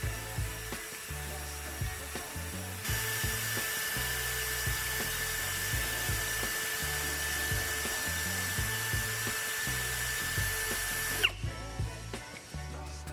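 A small high-speed electric power tool runs with a steady high whine. It starts about three seconds in and spins down near the end. Background music with a steady beat plays throughout.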